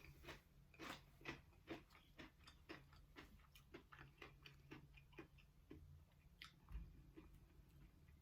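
Close-up chewing and biting: a steady run of small, faint crunchy and wet mouth clicks, a few a second, from eating aguachiles.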